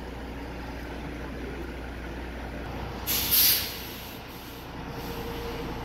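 Heavy-duty tow truck's diesel engine running steadily as the truck backs up slowly, with one short, loud hiss of air from its air brakes about three seconds in.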